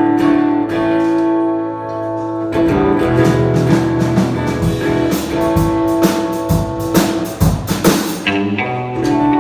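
Live band playing an instrumental passage: strummed guitar chords ringing over a bass line, with a run of sharp percussive hits in the second half.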